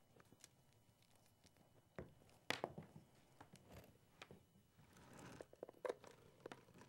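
Near silence with a few faint clicks and light rustles as a power cord is handled and its plug pushed into the microscope's power inlet.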